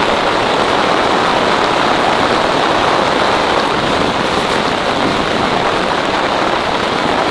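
Heavy rain falling steadily on a tent, a dense, even hiss with no let-up.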